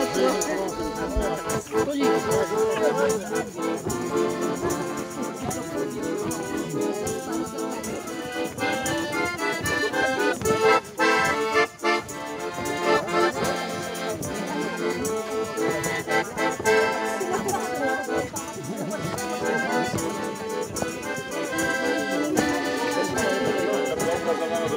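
Accordion playing a lively dance tune for dancers, without singing.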